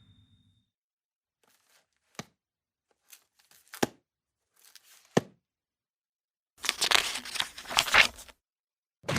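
Book and paper handling sound effects: a few separate light taps and knocks, then a dense burst of paper rustling lasting about two seconds.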